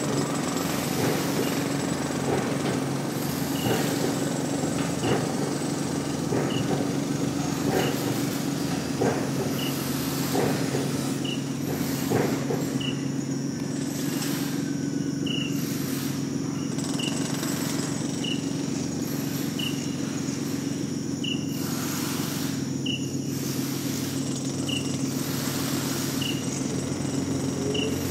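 Layered soundscape of environmental field recordings: a steady low machine hum under irregular knocks in the first half, short high chirps repeating about once a second, and a pulsing high insect-like buzz.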